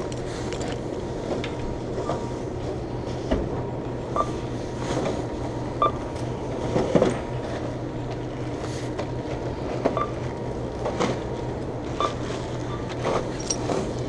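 Supermarket checkout: short electronic beeps every couple of seconds from the checkout equipment as the order is scanned and paid for, over plastic grocery bags rustling and a steady low hum.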